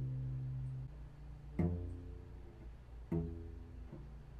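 Low cello notes plucked pizzicato, each ringing and fading. A strong pluck comes about a second and a half in and another at about three seconds, with softer note changes between them as left-hand fingers in a 1-3-4 pattern pull off the string.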